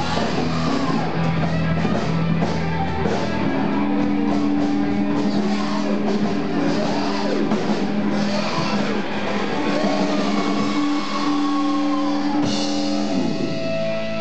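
Live rock band jamming, with a guitar lead of held notes that bend up and down over the full band.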